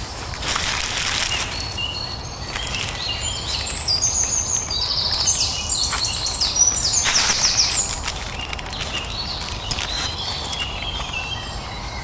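A songbird singing short high chirps and quick falling trills, densest in the middle, over the rustling of a fabric backpack being rummaged through by hand, loudest about a second in and again about seven seconds in.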